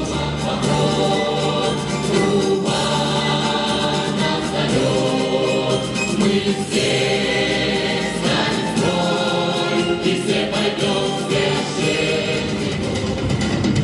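Choir singing a military-patriotic song with instrumental accompaniment.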